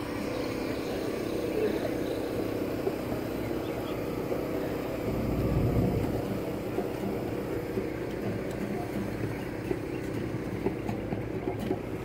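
A steady engine hum over outdoor background noise, with a low rumble that swells and fades about five to six seconds in. A few light clicks come near the end.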